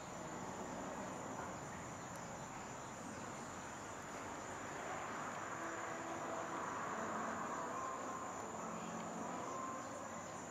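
Steady, high-pitched chorus of insects, a continuous trilling over a soft background hiss.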